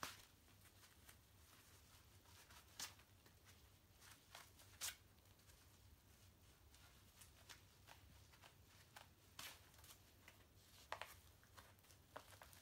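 Faint rustling and soft scuffs of latex goalkeeper gloves being pulled on, their tight, stretchy wristbands worked over the wrists; otherwise near silence.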